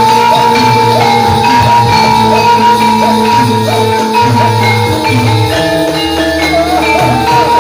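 Javanese gamelan music accompanying a jathilan horse dance. Bronze metallophones play a repeating melody over low, sustained tones.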